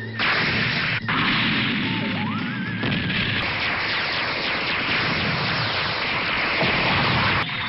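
Anime battle sound effects: a continuous, dense, explosion-like roar of noise, broken by a cut about a second in, with a short rising whine around two and a half seconds in.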